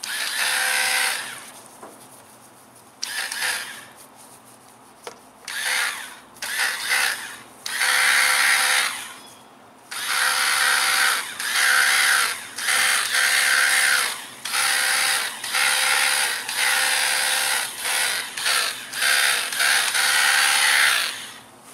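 Hart cordless pressurized cleaner's pump running in start-stop bursts as the trigger is squeezed and released, spraying water onto a car wheel. The bursts are short and spaced at first, then come almost back to back with brief breaks.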